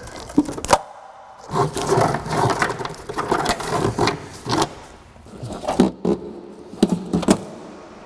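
Hands-on work noise from removing the evap vent hose and its fittings: sharp clicks and knocks, with a few seconds of scraping and rubbing in the middle.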